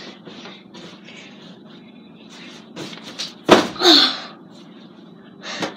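A body landing on a mattress during a front flip: a dull thump about three and a half seconds in, followed at once by a short grunt, with another soft thud near the end.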